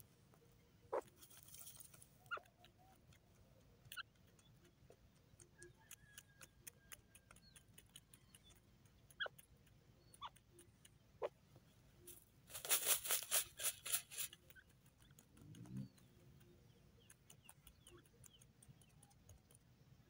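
Mostly quiet, with scattered faint chirps and ticks, and about two-thirds through a burst of rapid rustling, about a second and a half long, from a grey francolin shuffling its feathers in loose soil.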